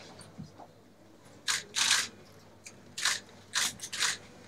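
Camera shutters clicking, about five or six short clicks at uneven gaps of half a second to a second, over quiet room tone.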